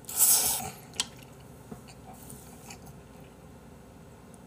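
A loud slurp of black-bean instant noodles being sucked into the mouth, lasting under a second, followed by a sharp click about a second in. Then quiet chewing of a full mouthful.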